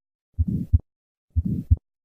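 Heartbeat with an innocent (harmless) systolic murmur, heard at the second right intercostal space: two beats about a second apart, each a first heart sound followed by a short whooshing murmur that fades before the second heart sound.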